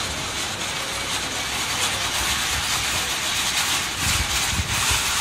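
Steady airport apron noise: a broad hiss of jet engines, with low rumbles about four seconds in.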